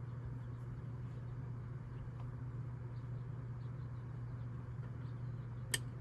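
Small plastic wiring connectors being handled and plugged in during a steering wheel install, giving faint scattered ticks over a steady low hum, with one sharp click near the end.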